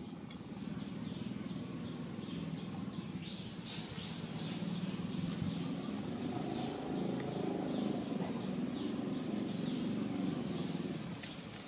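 Outdoor ambience: short, high bird chirps, each gliding down, repeat every second or two over a steady low rumble.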